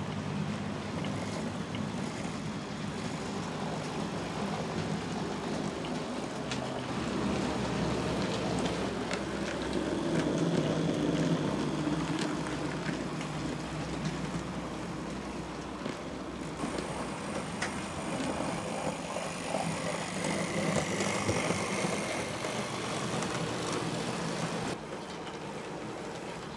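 OO gauge model trains running on sectional track: the steady whir of the locomotives' electric motors, with the wheels clicking over the rail joints. The sound swells as trains pass close, and drops suddenly near the end.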